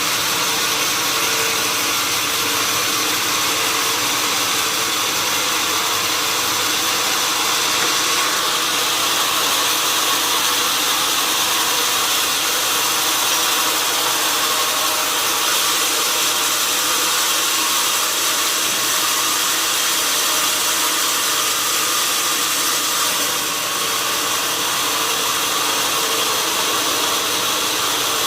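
Sawmill saw and its machinery running: a loud, steady machine noise with a faint hum under it.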